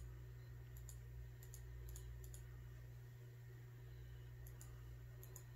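Faint clicks of a computer mouse, several in quick pairs in the first two and a half seconds and a few more near the end, over a steady low hum.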